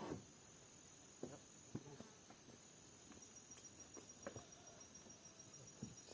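Near silence: insects trilling with one steady high-pitched note, and a few faint scattered clicks and knocks.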